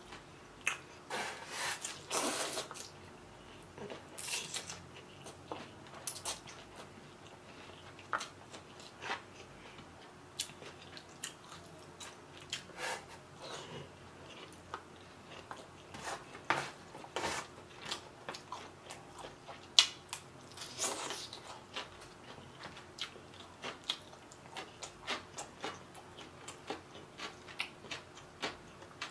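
Close-miked eating of rice vermicelli noodles with bean sprouts and greens: many short wet mouth clicks and chewing smacks, with a few longer slurps.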